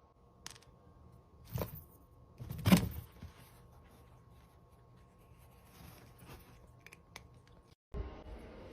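Quiet room with a few short, soft knocks or rustles, the loudest about three seconds in.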